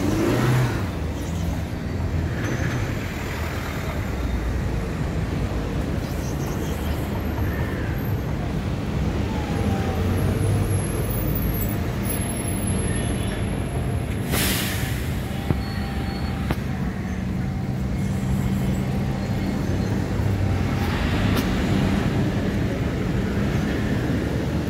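Steady rumble of road traffic going past, with a short hiss about halfway through.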